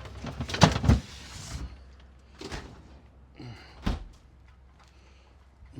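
A run of knocks and clunks in the first second with a short rustling hiss, then three separate knocks a little apart: things being handled and set down.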